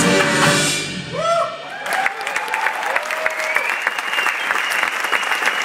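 A live band's song ends about a second in, and the audience breaks into applause and cheering, with whoops and a long, high whistle near the end.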